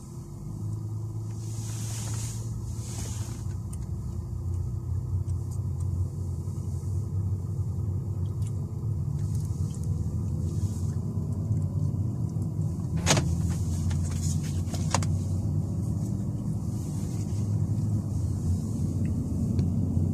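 A car being driven, heard from inside the cabin: a steady low engine and road rumble that builds a little. Past the middle there are two sharp clicks about two seconds apart.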